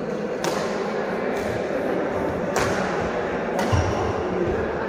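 Badminton rally: three sharp racket strikes on the shuttlecock, the first two about two seconds apart and the third a second later, over the steady background noise of a large sports hall.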